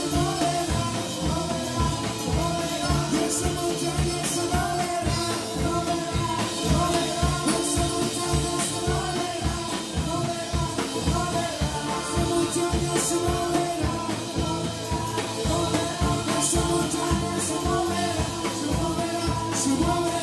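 Live church praise band playing a song with a steady beat: drum kit, electric bass and keyboard under several singers.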